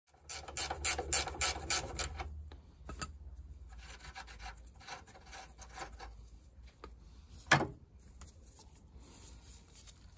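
A ratchet spanner clicking through quick strokes while undoing the tow bar socket fixings, about three sharp clicks a second for the first two seconds. Then scattered lighter clicks and scraping of metal parts, with one loud sharp click about seven and a half seconds in.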